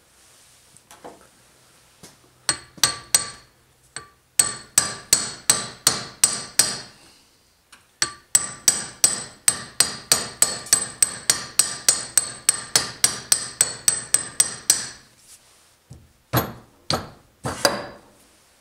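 Rapid hammer taps, about three a second, driving the freshly oiled, leather- and rubber-sealed piston down into a Ford 8N hydraulic lift cylinder, each blow with a bright metallic ring. The tapping breaks off twice briefly, then ends with a few last blows as the piston seats.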